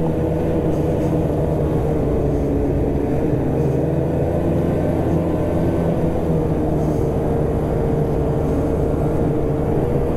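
Snowmobile engine running at a steady trail cruise under a steady rush of noise; its pitch sags a little about two seconds in and comes back up.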